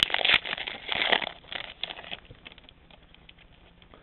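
Foil trading-card pack wrapper crinkling as it is torn open and peeled off the cards, dying down about two seconds in to a few faint ticks.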